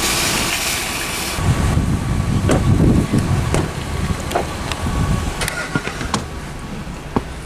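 A car running, with a loud hiss in the first second and a half, then a low rumble and scattered clicks and knocks.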